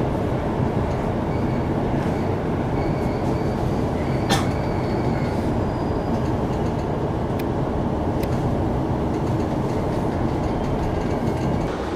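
Running noise inside an E233-1000 series Keihin-Tohoku Line commuter train: a steady rumble of wheels and motors on the rails. A sharp click comes about four seconds in, with a faint high squeal for a couple of seconds around it, and two lighter clicks follow later.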